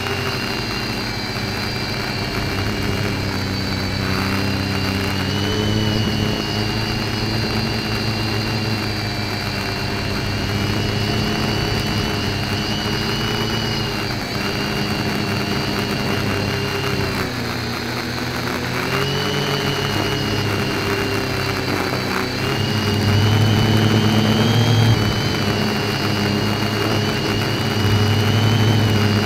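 FPV quadcopter's electric motors and propellers whining in flight, heard from the camera on board. The pitch rises and falls with throttle, dips just past halfway and then climbs back, and is loudest near the end.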